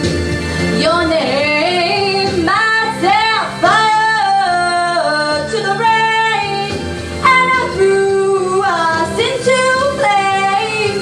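A female voice singing long held notes that slide up and down, over a backing track.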